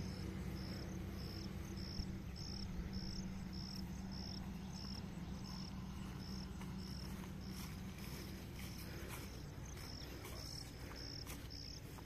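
An insect, most likely a cricket, chirping in an even, regular series of short high-pitched pulses, about two a second. A low steady hum runs underneath.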